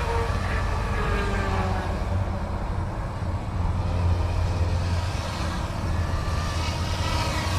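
Electric scale RC helicopter in flight: a steady rotor hum with a higher motor whine that drifts up and down in pitch as it manoeuvres.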